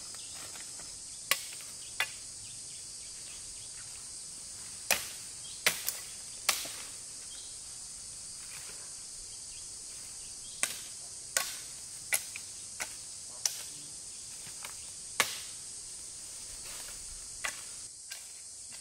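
A machete chopping through brush and saplings: about a dozen sharp, irregular strikes. Behind them a steady high insect buzz runs throughout.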